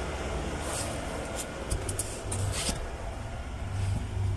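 Rustling and light scraping as a new pleated cabin air filter is handled, a few short crackles in the first half, over a steady low rumble.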